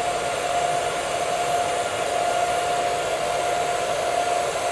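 TIG welding arc burning steadily on a vertical-up fill pass at about 140 amps: an even hiss with a steady high hum.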